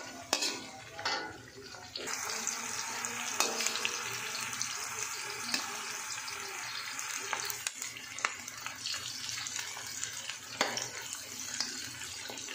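Green capsicum and onion pieces sizzling in hot oil in a metal wok, stirred with a slotted metal spatula that scrapes and clicks against the pan. The sizzle is weaker at first, then becomes louder and steady about two seconds in, with scattered spatula clicks throughout.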